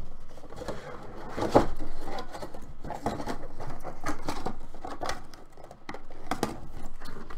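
A clear plastic helmet display case and a cardboard box being handled on a tabletop: irregular rustling and light knocks, with one sharp knock about a second and a half in.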